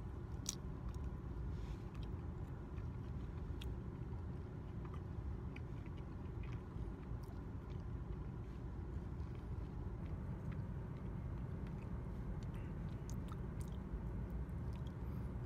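A person biting into a soft tortilla burrito and chewing with the mouth closed, with scattered small wet mouth clicks, over a steady low rumble inside a car.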